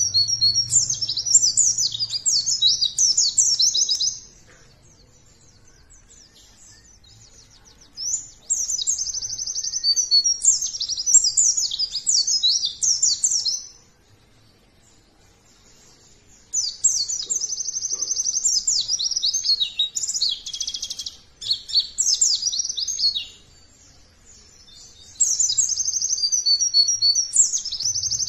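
White-eye (pleci) in full song: a rapid, high-pitched twittering song delivered in four bursts of several seconds each, with pauses of a few seconds between them.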